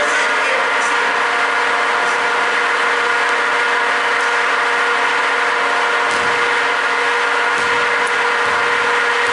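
A steady, loud mechanical hum made of several held tones, unchanging throughout, with a few faint short knocks over it.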